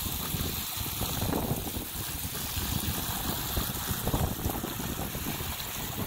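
Wind buffeting the phone's microphone: an uneven, gusting low rumble.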